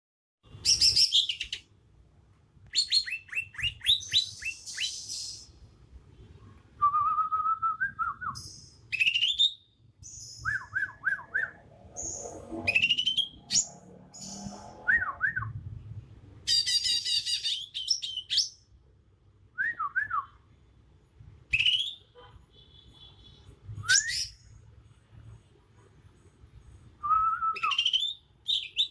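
Young male green leafbird (cucak ijo) singing its natural song, without learned mimicry: a run of varied, loud whistled phrases, rapid trills and sharp rising notes with short pauses between them.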